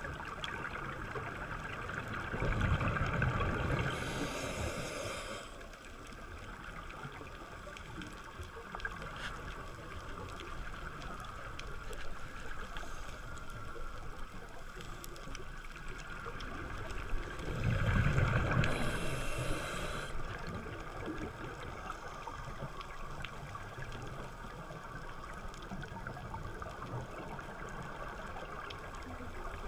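Scuba diver breathing through a regulator underwater: two exhalations, about fifteen seconds apart, each a rumbling gush of bubbles ending in a brighter hiss, over a steady underwater hiss.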